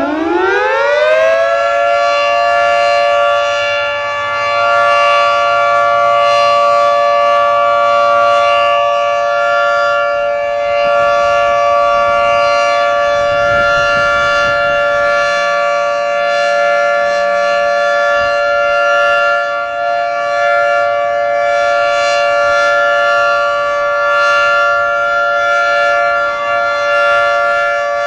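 Federal Signal 3T22 outdoor warning siren winding up, its pitch rising over the first two seconds, then holding a steady two-note chord. The loudness swells and fades gently as the rotating head turns. It is a steady alert sounded as a siren test.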